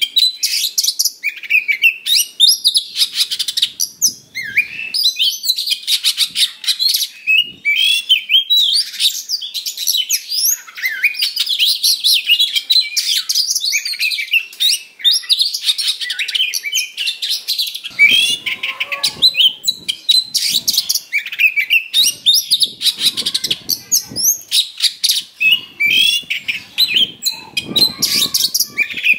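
Oriental magpie-robin (kacer) singing without a break: a rapid, loud run of high whistles, sweeping notes and trills mixed with harsh mimicked phrases. It is the combative, full-throated song that keepers use to provoke other magpie-robins into singing.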